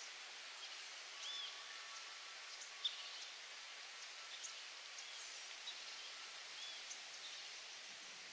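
Faint steady hiss with small scattered pops, and a few short high bird chirps over it.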